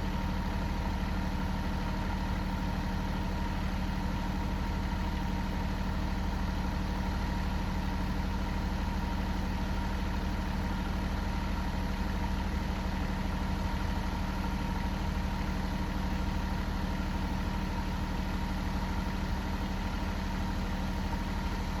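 Engine idling steadily with an even, unchanging hum.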